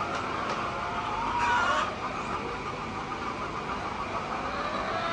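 Steady mechanical drone, with a single short hen call about a second and a half in.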